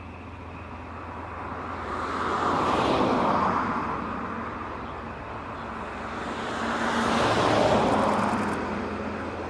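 Two vehicles pass one after the other, each a rush that rises and fades, peaking about three seconds and about eight seconds in. A steady low engine hum runs underneath.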